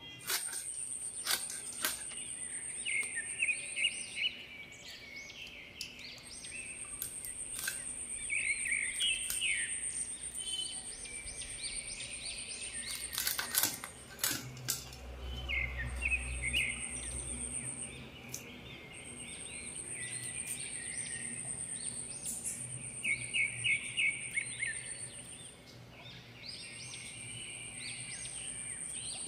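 Ambient creature sounds: a high, steady trill that stops and starts every few seconds, with repeated bursts of rapid chirping like birds, and a few sharp clicks and knocks.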